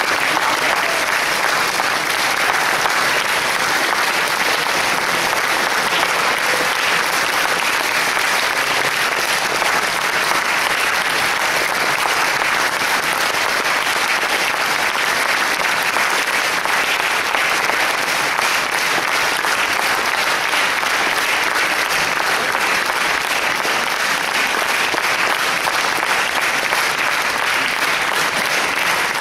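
Concert-hall audience applauding steadily.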